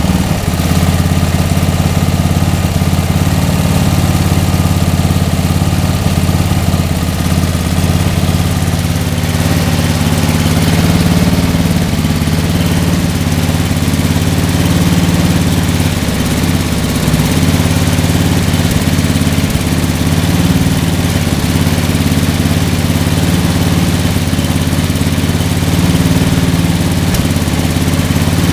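Riding lawn tractor's Briggs & Stratton engine running steadily, pretty good for now. The owner says it runs well only on partial choke and probably races once warmed up.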